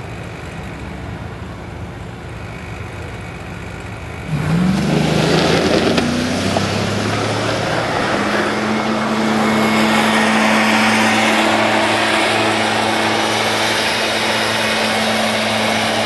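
A motor vehicle, loud from about four seconds in: its pitch rises, then holds one steady hum over a rushing noise.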